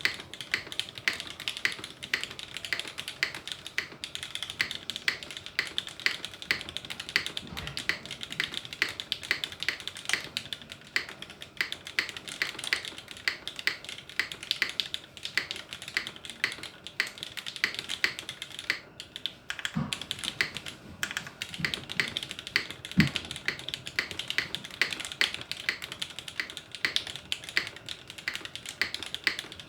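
Steady fast typing on a Tiger TKL mechanical keyboard with Cherry vintage black linear switches, aluminium top-mount plate and GMK keycaps: a continuous run of keystroke clacks, with a brief pause a little past halfway and a few deeper thuds just after it.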